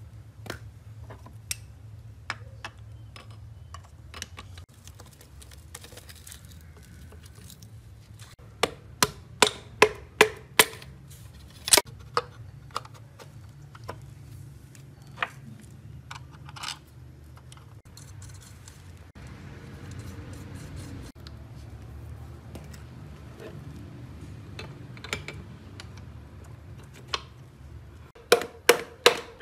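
Metal engine parts and hand tools clinking and knocking during hand reassembly of a four-cylinder engine block: a run of sharp knocks about ten seconds in, and a quick series of taps, about three a second, near the end.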